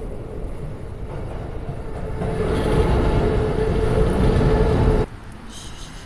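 A loud rumble of a passing vehicle that builds over a couple of seconds, holds steady, and cuts off suddenly about five seconds in.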